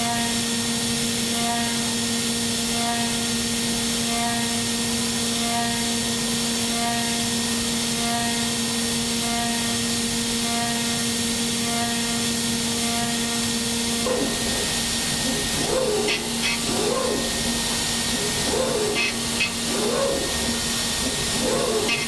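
CNC milling machine cutting billet aluminium: a steady hum from the spindle under a constant hiss. About 14 seconds in, the hum changes and a rhythmic warbling starts, repeating about once a second.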